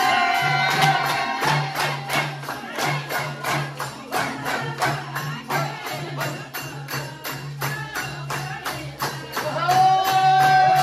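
Nepali folk dance music: a song with held sung notes over a steady quick beat of percussion with a jingling tambourine-like sound.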